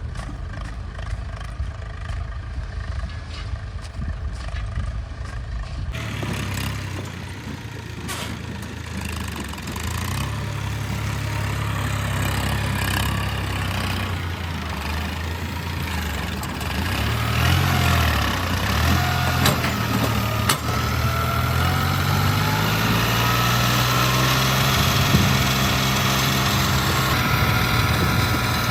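Heavy diesel machinery engine running, with an abrupt change in the sound about six seconds in, then revving up and down several times under load in the second half.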